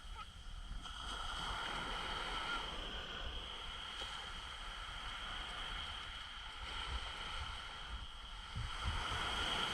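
Sea water sloshing and gurgling, with an uneven low rumble.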